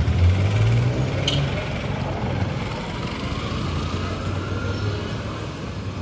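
Car engine running close by, its low hum loudest in the first second or so and then steadier, over general street noise.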